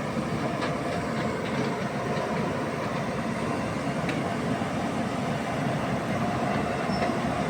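JCB excavator's diesel engine running steadily, with a faint steady whine and a few light clicks.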